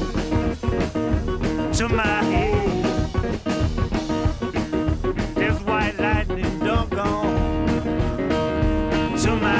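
Background music: a blues-style song with guitar and singing.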